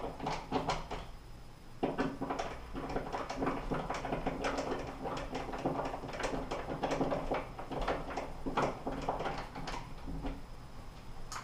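Hand screwdriver driving a screw through a metal towel-bar bracket into a molly wall anchor: a dense run of short scraping clicks and creaks as the screw turns, with a brief lull about a second in.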